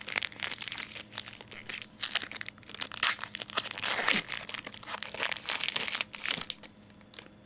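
Panini Prestige trading-card pack wrapper crinkling as it is torn open and handled, in irregular scratchy bursts.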